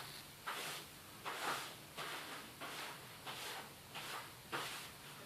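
Hands working oiled msemen dough on the work surface: soft, even rustling strokes, about one every 0.7 s.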